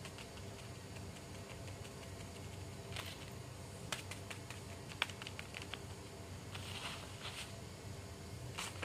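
Faint, scattered clicks and taps of small plastic and rubber fidget toys being picked up and set down on a paper sheet, with a brief paper rustle. A few sharper clicks come near the middle.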